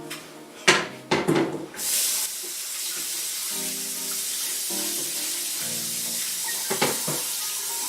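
Kitchen tap running into the sink as something is rinsed under it. The water comes on about two seconds in, after a couple of sharp knocks of utensils or dishes.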